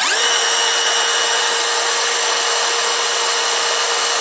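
Cordless power tool's electric motor running at full speed, powered by a repaired Parkside Performance 20 V battery under test. It spins up with a rising whine right at the start, then runs steadily and loud.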